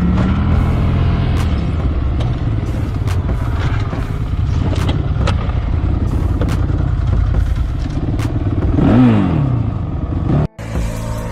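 Off-road vehicle engine running with repeated knocks and clatter, revving up and back down once about nine seconds in. Near the end the sound cuts out briefly and the engine sound changes.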